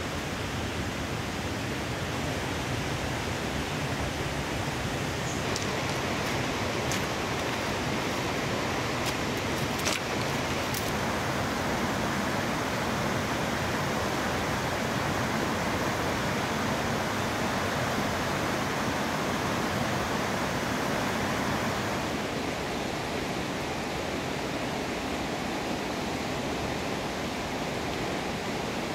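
River rapids rushing over rocks, a steady wash of water noise, a little quieter from about 22 seconds in. A few light clicks sound between about five and eleven seconds in.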